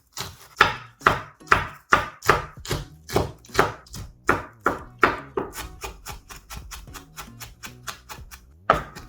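Kitchen knife chopping chili peppers on a cutting board: sharp strikes about two to three a second, turning quicker and lighter after about five seconds.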